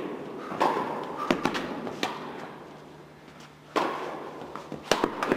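Tennis balls being hit by rackets and bouncing on an indoor court: a series of sharp hits, about eight, that echo in the hall. The loudest are about three-quarters of a second in and near four seconds.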